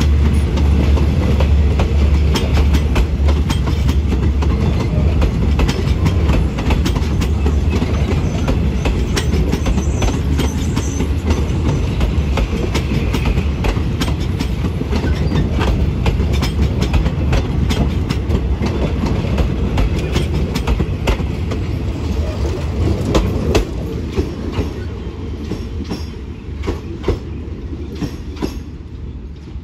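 Passenger coaches of a long train rolling past, wheels clacking over rail joints with a steady rumble underneath. The sound fades over the last few seconds as the rear of the train draws away.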